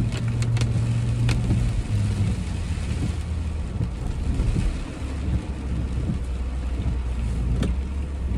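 A car driving, its engine and road noise a steady low hum with an even hiss over it. The engine note drops lower about halfway through. A few sharp ticks come near the start and once near the end.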